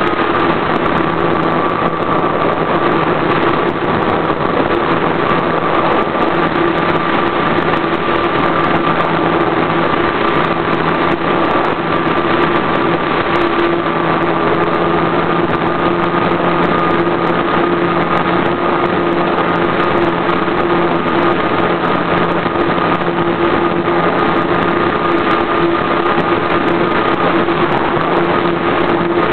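RC model airplane's engine running at a steady speed, heard close up from the onboard camera on the plane, loud and buzzing with a nearly constant pitch.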